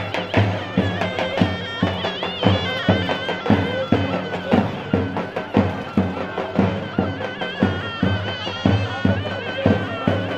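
Turkish davul bass drum beaten in a steady folk rhythm under a shrill, wavering reed melody, the sound of a davul-zurna pair playing folk music.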